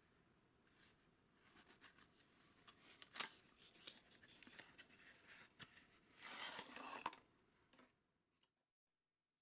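Small cardboard box handled and opened by hand: faint rustling of card with scattered sharp clicks, and a louder rustle about six seconds in, ending in a sharp click, as the vacuum tube is drawn out of the box.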